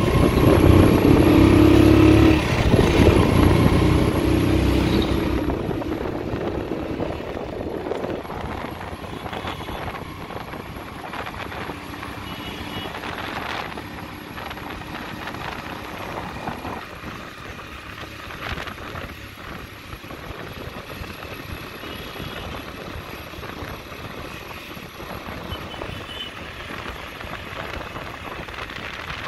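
Road traffic heard while riding along a road: a vehicle engine is loud for the first four or five seconds and then fades, leaving steady, quieter road and engine noise.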